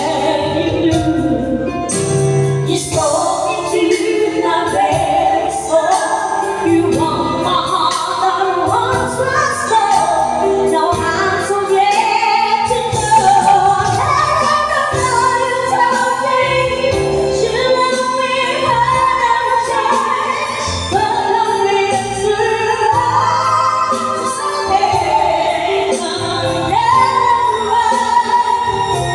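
A girl and a woman singing a pop ballad duet into microphones over a musical backing track.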